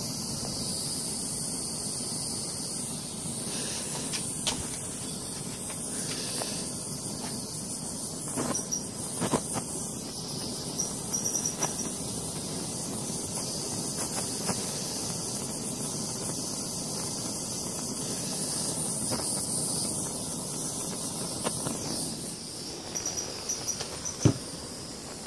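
Small wood fire in a homemade top-lit gasifier stove hissing steadily, with scattered crackles and pops. The fire is struggling and not taking off.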